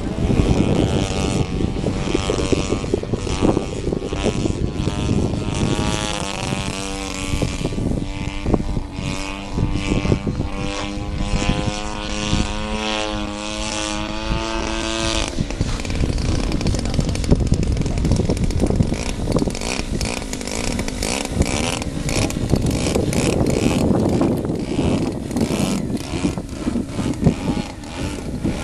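The DLE-55 single-cylinder two-stroke gasoline engine of a large radio-controlled aerobatic plane running, with its propeller, while the plane hovers. Its pitch wavers up and down with throttle changes in the first half, then turns to a rougher, less tonal rush about halfway through.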